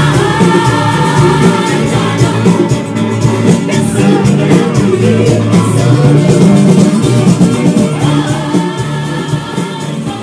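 1970s French disco-funk song playing from a 45 rpm vinyl single: a groove band with a female singer. The level drops somewhat near the end.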